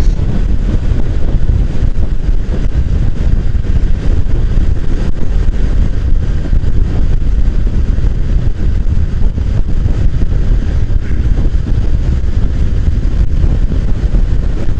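Motorcycle being ridden at road speed: steady wind rushing over the microphone mixed with engine and road noise, heaviest in the low end and even throughout.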